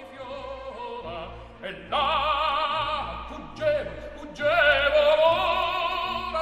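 Operatic singing in a soundtrack: a high voice holds long notes with wide vibrato, swelling louder about two seconds in and again just past the middle.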